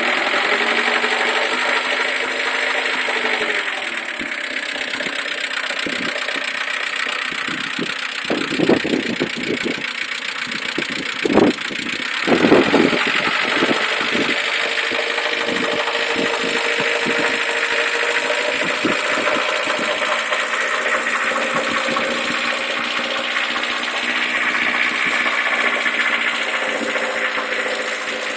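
Mercedes A140's 1.4-litre four-cylinder petrol engine running steadily at idle, with a steady hum. Between about 8 and 13 seconds in, a cluster of louder short knocks and rattles.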